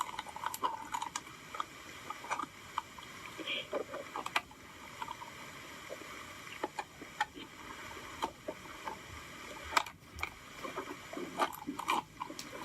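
Slime being squeezed and stretched by hand: irregular sticky clicks and small wet pops, with one sharper click about ten seconds in.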